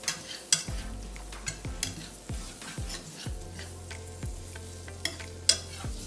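Wire whisk stirring and scraping a butter-and-flour roux with diced onions in a nonstick skillet, with irregular sharp clicks of the whisk against the pan, the loudest about half a second in and near the end. Under it, the butter sizzles as the roux cooks.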